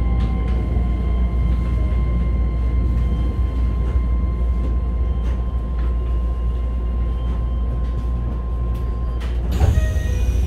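Inside a Keisei 3000 series car running slowly into a station: a low steady rumble with a steady whine from the Toyo IGBT-VVVF equipment, which cuts off about nine seconds in. Right after, a sudden hiss of compressed air as the train comes to a stand.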